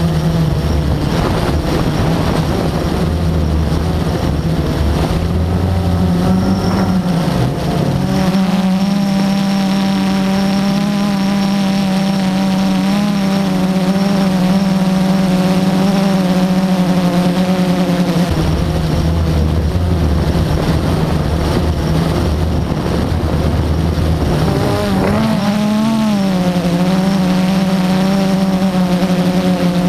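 Multirotor drone's motors and propellers droning at a steady pitch, which dips and recovers briefly twice, with stretches of low wind rumble on the microphone.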